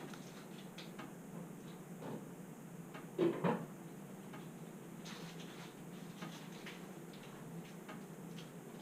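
Firewood burning in a fireplace, crackling with small irregular snaps and ticks over a steady low hum, with a louder crackle about three seconds in.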